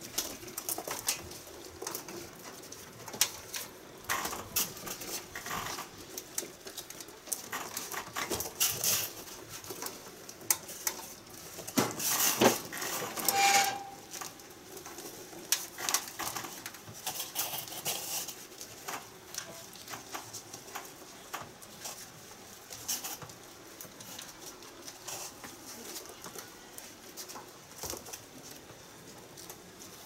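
Vinyl tape being pulled off the roll and wound around air-conditioner copper pipes: scattered crackles and clicks, with one longer, louder pull of tape about twelve seconds in.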